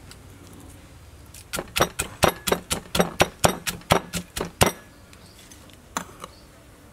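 Wooden pestle pounding in a clay mortar, crushing crab with garlic, chili, peanuts and dried shrimp: a quick run of about fifteen strikes, roughly five a second, starting about a second and a half in, then one more strike near the end.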